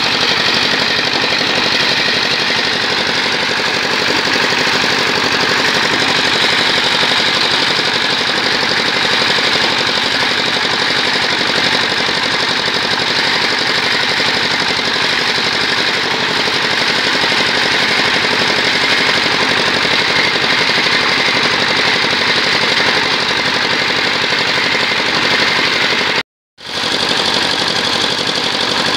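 A single-cylinder stationary diesel engine runs steadily at speed with a fast, even firing beat. It is driving the water pump that flushes mud up out of a well borehole during drilling. The sound breaks off for a split second near the end.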